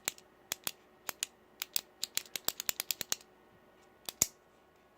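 Buttons on the click face of a mini Fidget Cube being pressed over and over: sharp small plastic clicks, coming quickly in a run through the middle, then a pause and two more near the end.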